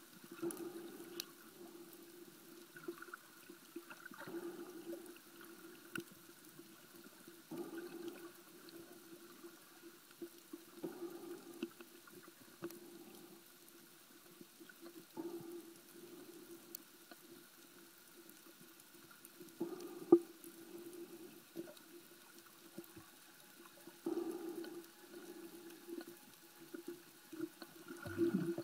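Muffled underwater sound picked up by a submerged camera: a steady low hum with swells of whooshing water noise about every four seconds.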